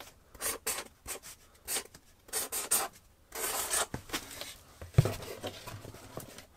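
Marker pen writing on a cardboard box: a series of short scratching strokes as capital letters are drawn, with one single knock about five seconds in.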